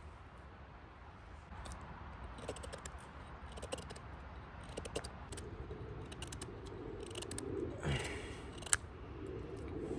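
A knife shaving curls off a small wooden stick in a run of short scraping strokes, with a sharp click near the end.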